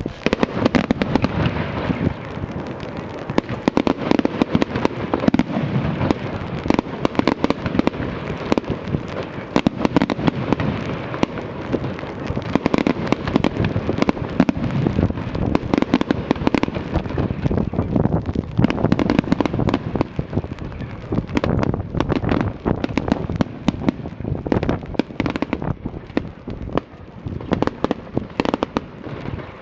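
Fireworks going off in rapid, continuous succession: a dense string of bangs and crackles with no real pause, thinning out slightly near the end.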